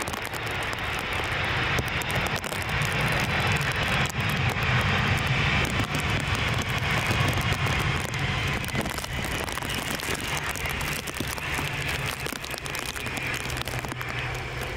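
Jet engine noise from a Boeing 747 arriving to land: a steady roar with a low rumble beneath, easing off slightly near the end.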